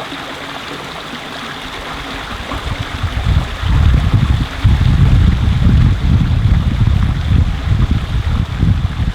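Flowing stream running with a steady rushing hiss. From about three seconds in, wind buffets the microphone in loud, gusty low rumbles that drown out the water.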